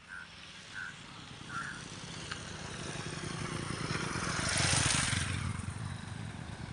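A motor vehicle passing on the road, its engine and tyre noise swelling to a peak about five seconds in and then fading.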